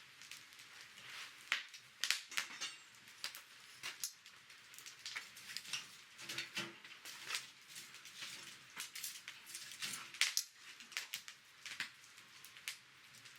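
Wood campfire crackling, with irregular sharp pops and snaps scattered over a quiet hiss.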